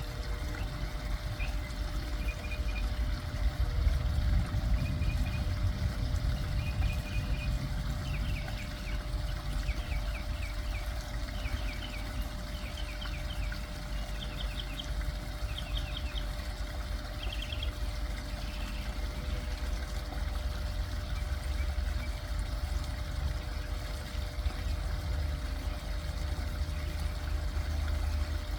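Backyard pond waterfall trickling and splashing steadily, with a deep low rumble underneath. A songbird sings through the first two-thirds, repeating short notes that speed up into rapid trills in the middle, then stops.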